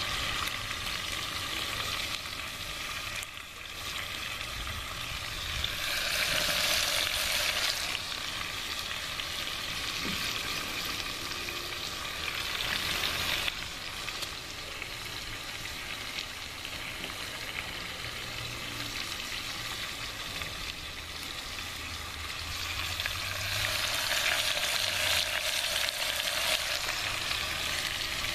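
Oxtail with chopped onion and garlic sizzling steadily in hot oil in a cast-iron potjie pot, browning and frying the onions toward glassy. The sizzle swells louder twice for a couple of seconds, about a quarter of the way in and again near the end.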